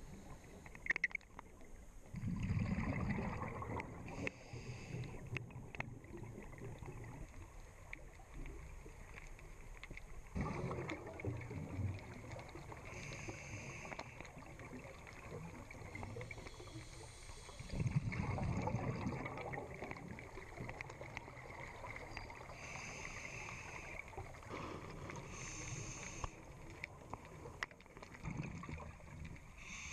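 A scuba diver breathing through a regulator, heard underwater: exhaled bubbles gurgle out in a surge about every eight seconds, with shorter, higher hissing between them.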